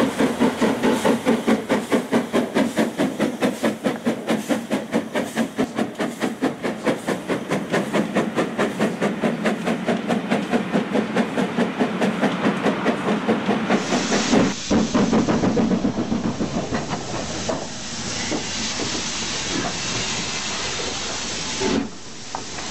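Steam locomotive working, its exhaust chuffing in a steady rhythm of about two to three beats a second with hissing steam. About two thirds of the way through, the recording cuts to a steadier steam hiss with fainter, irregular beats.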